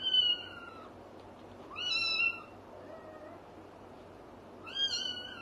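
A young kitten meowing loudly: three short, high-pitched meows about two seconds apart, each falling slightly in pitch.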